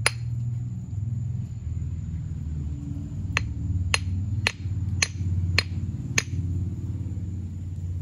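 Claw hammer tapping a fossilized clam held in the hand, trying to crack it open: one sharp tap at the start, then six evenly spaced taps about half a second apart from about three seconds in. A steady low rumble runs underneath.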